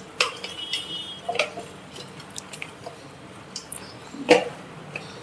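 Hands rubbing lemon juice over a raw whole chicken: scattered soft wet squishes and light clicks, with one sharper knock about four seconds in.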